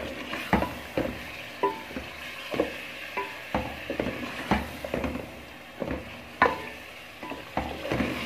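Chicken pieces being stir-fried in a spicy masala in a metal pot: a spoon knocks and scrapes against the pot about twice a second, some strokes with a short metallic ring, over a steady sizzle. This is the bhunai stage, frying the chicken down in its spices.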